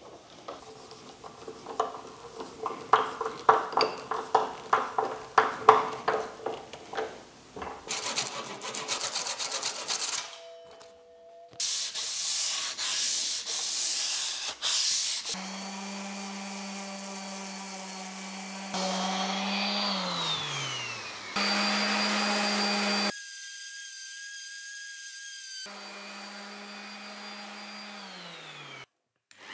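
A string of short workshop sounds on a softwood frame: rhythmic tool strokes, then a fast run of clicks. From about halfway a power tool's motor runs steadily, winding down twice near the end.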